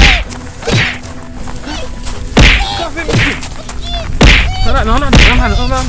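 Repeated whacks of blows landing on a man, about six in all, with his pained cries and groans between them.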